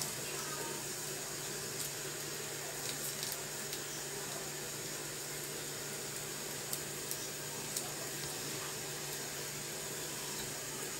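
Quiet, steady sizzle of a bread-and-egg pizza base frying on low flame in a nonstick pan, over a steady low hum, with a few faint taps and scrapes of a metal spoon spreading sauce across it.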